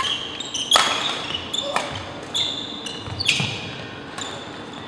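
Badminton rally: sharp racket strikes on the shuttlecock about once a second, with sneakers squeaking on the gym floor between them.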